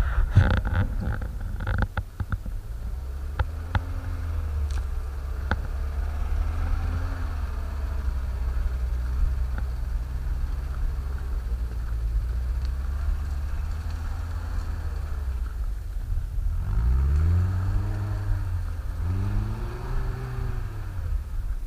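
Off-road 4x4's engine running steadily through deep snow, with a few sharp knocks in the first couple of seconds. Near the end the engine revs rise and fall twice as the truck climbs a steep snowy bank.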